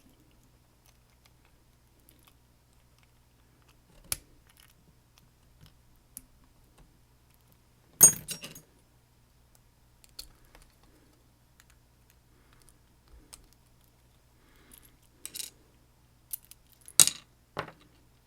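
Scattered sharp metallic clicks and clinks of a Kwikset SmartKey lock cylinder and its tools being handled while it is being taken apart: single clicks about four and ten seconds in, a louder short clatter about eight seconds in, and a quick run of clicks near the end, over a faint low hum.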